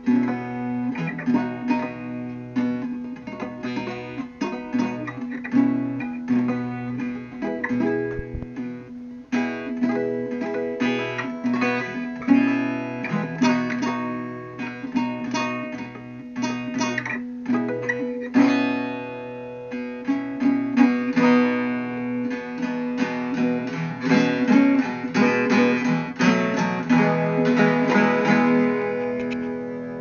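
Background guitar music: a steady stream of quickly plucked notes.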